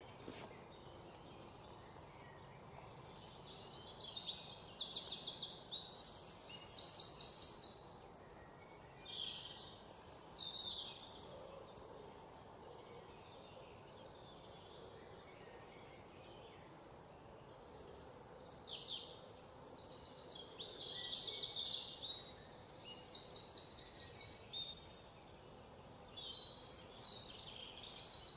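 Birds singing: high chirps and fast trilling phrases that come and go every few seconds over faint background noise.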